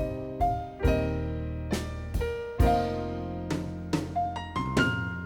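Background music: a piano passage without singing, single notes and chords struck about once or twice a second and left to ring.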